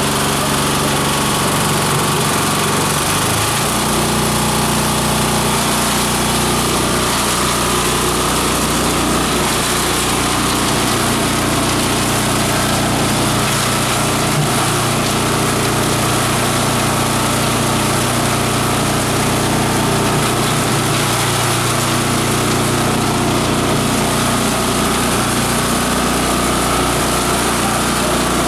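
Multi-purpose chopper-shredder running steadily, its high-carbon steel blades chopping dry leaves and other plant material fed into it: a steady hum under a dense grinding noise.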